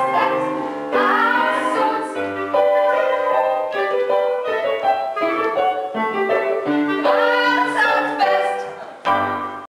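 Musical-theatre song: voices singing over piano accompaniment. It cuts off abruptly near the end.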